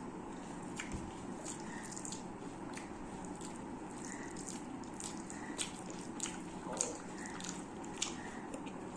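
Close-miked eating: wet clicks and smacks of chewing, with fingers squishing and mixing rice and curry on a steel plate. A few sharper wet clicks in the second half.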